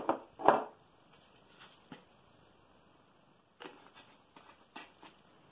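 Short knocks and clicks of kitchen items being handled on a countertop: two louder knocks in the first half second, a faint click about two seconds in, then a cluster of small clicks near the end.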